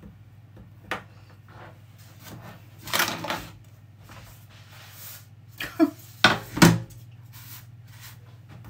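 Clatter of a metal baking tray being handled on a kitchen worktop: a scrape about three seconds in, then a few sharp knocks around six seconds in as it is set down. A low steady hum sits underneath.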